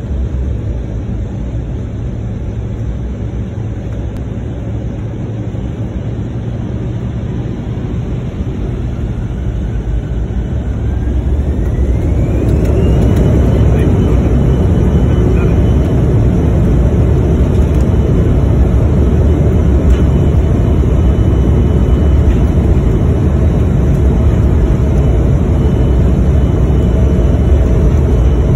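Embraer E175 cabin noise with the GE CF34-8E turbofans running at low thrust. About ten seconds in, the engines spool up, a whine rising in pitch, and settle into a steady, louder roar with a high whine on top as the jet powers up for takeoff.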